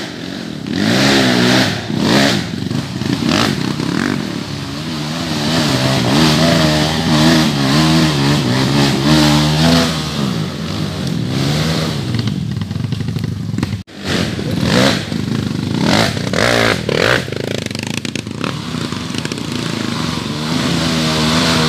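Dirt bike engines revving hard and unevenly under load, the throttle worked up and down as the bikes climb a slippery slope. There is an abrupt short break about two-thirds of the way through, then more revving.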